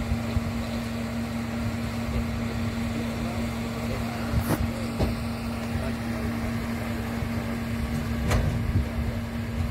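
Engine of a shed-hauling rollback truck running with a steady hum and low rumble while its tilted bed unloads a shed. Two short sharp knocks come about four and a half and eight seconds in.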